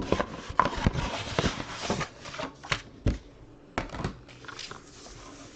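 Paper envelope being opened and handled: rustling and crinkling with scattered sharp taps and clicks, dying down near the end.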